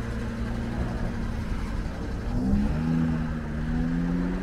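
Car engine running steadily, then rising in pitch about two seconds in as it picks up speed.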